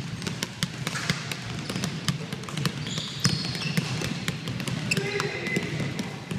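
Basketballs dribbled hard on a hardwood gym floor: quick, uneven bounces of two or more balls at once, roughly five a second.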